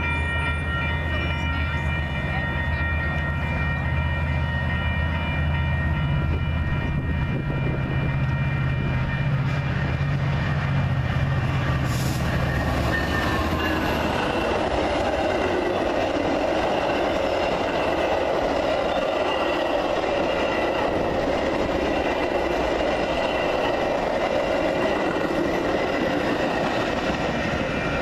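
Metra commuter train passing through a grade crossing while the crossing bells ring steadily. A low diesel engine drone fills the first half and fades out about halfway, then the rolling clatter of the bilevel coaches' wheels on the rails takes over.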